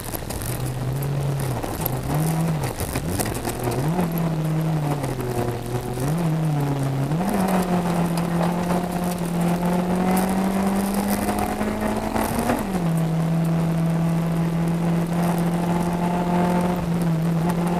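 Rally car engine heard from inside the cabin on a gravel stage: the revs rise and fall repeatedly for the first seven seconds or so, then pull steadily and slowly higher until a sudden drop about twelve seconds in, an upshift, after which it runs on steadily. Loose stones tick against the car throughout.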